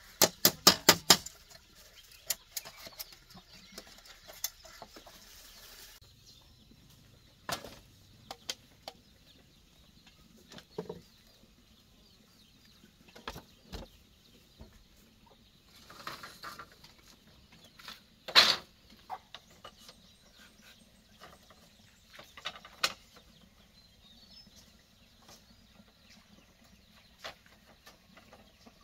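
Scattered clicks and knocks of hand work on a bamboo bench frame: a quick run of sharp clicks at the start as pliers work the binding wire, then occasional single taps and knocks on the bamboo, with a louder one about two-thirds through.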